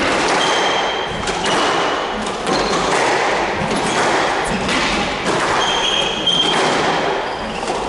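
Squash rally: the rubber ball struck by rackets and smacking off the walls in a run of sharp hits, roughly one every second, with squash shoes squeaking on the hardwood floor near the start and again near the end.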